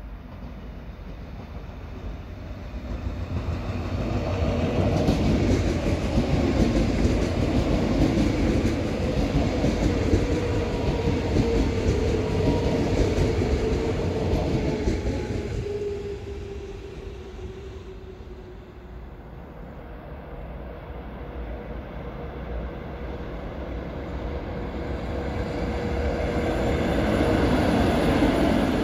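A Munich S-Bahn electric multiple unit passes close by: wheels rumbling on the rails under a steady whine that drops slightly in pitch as it goes by, fading about two-thirds of the way through. Near the end a DB class 111 electric locomotive comes close, its rumble and whine rising again.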